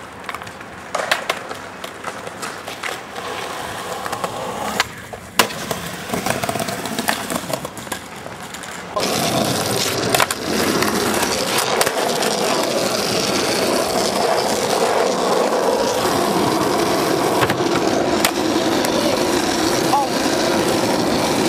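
Skateboard knocks and clacks, then from about nine seconds in the steady noise of skateboard wheels rolling over asphalt.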